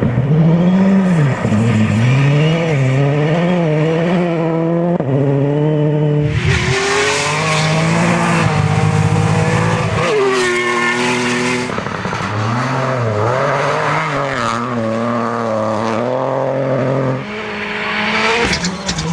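Rally cars on a gravel stage, engines revving hard and dropping back through gear changes. A stretch of loud hiss about six seconds in runs for around five seconds, with tyres scrabbling on the loose surface. The sound changes abruptly several times, as if cut between different cars or passes.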